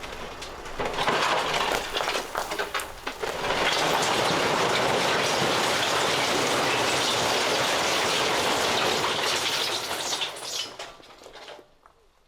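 A truckload of stone being dumped: a scattered clatter of rocks that builds into a steady rushing pour for several seconds, then dies away.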